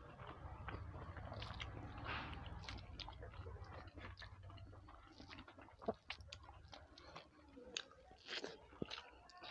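Close-miked eating by hand: chewing and wet mouth sounds, with small sticky clicks and squelches of fingers mixing rice and curry on a plate. A faint low hum fades out about four seconds in, and a few sharper clicks stand out in the second half.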